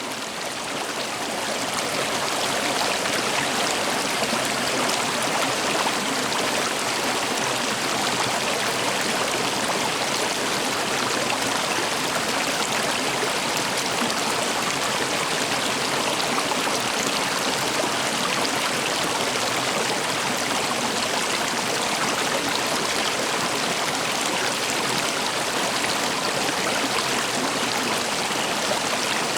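Stream water flowing steadily, a dense even rush that fades in over the first couple of seconds.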